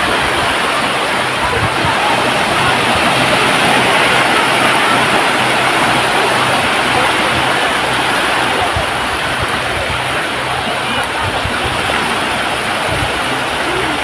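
Small waves washing up on a sandy beach: a steady rush of surf.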